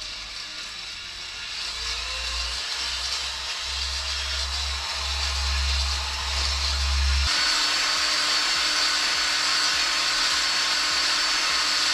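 Drill spinning a three-leg honing tool with 220-grit stones in an oiled cylinder bore of a Ford 170 inline-six block, the stones grinding the wall as it is worked in and out to deglaze it for new rings to seat. About seven seconds in the sound changes, with a steady high whine coming in, and it stops abruptly at the end.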